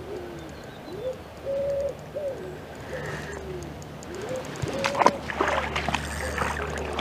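A pigeon cooing repeatedly, short soft notes that dip and rise, over the low steady rumble of fast-flowing river water. About five seconds in comes a brief burst of sharp clicks and rattles, the loudest sound.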